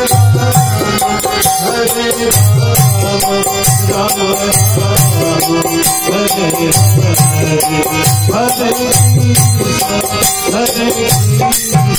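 Harmonium played over held drone notes, with quick high percussion strokes and low drum beats in a repeating pattern: Hindu devotional kirtan music.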